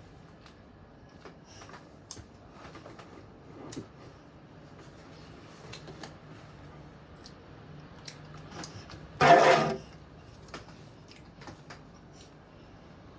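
Faint rustles and small clicks of a boy handling and eating a piece of bread, with one loud, brief rush of noise about nine seconds in.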